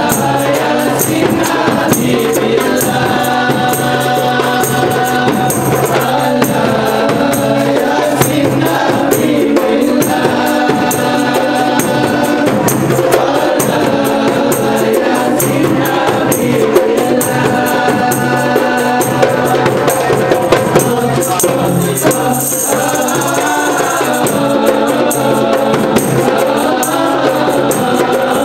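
A group of men singing together into microphones, accompanied by hand-struck Malay frame drums (kompang) and a barrel-shaped hand drum beating a fast, steady rhythm.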